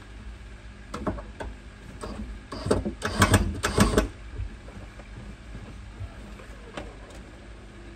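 Knocking and rattling from hands working on a subwoofer box: a few clicks, then a loud cluster of knocks and clatter about three seconds in, followed by a steady low hum.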